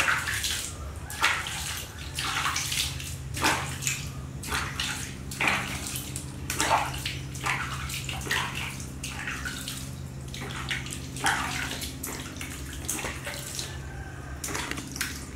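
Water splashing and dripping as a hand scoops water from a small plastic bowl and splashes it onto a baby monkey's fur, in irregular splashes every half second to a second. A steady low hum runs underneath.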